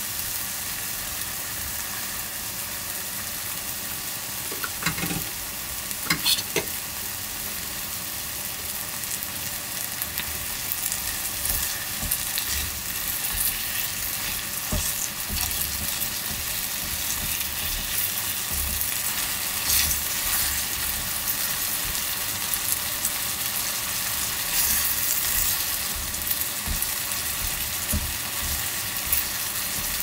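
Sliced meat and onions in tomato sauce sizzling in a paper-lined pot while being stirred with chopsticks. There are a few sharp clicks about five to six seconds in.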